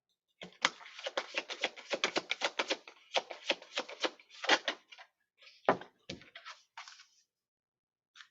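A deck of tarot cards being shuffled by hand: a fast run of papery flicks and taps, which thins to a few scattered taps after about five seconds and stops shortly before the end.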